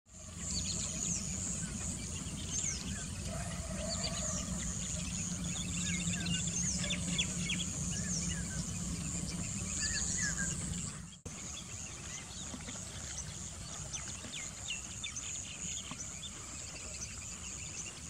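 Natural outdoor ambience: many short bird chirps and calls over a steady high insect drone and a low rumble. About eleven seconds in the sound changes abruptly, the rumble dropping away while the calls and insect drone go on.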